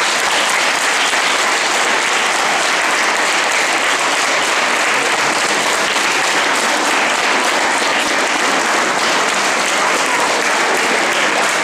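Large audience of schoolchildren applauding: a dense, steady round of clapping that starts abruptly and holds at an even level.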